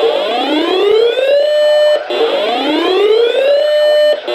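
Electronic whoop alarm tone from an emergency alert broadcast, repeating about once every two seconds. Each whoop rises in pitch, holds for a moment at the top, then cuts off.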